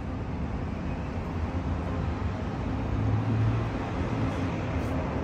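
Distant city street traffic heard from several floors up: a steady wash of noise with a low rumble that swells about three seconds in, as of a heavier vehicle passing below.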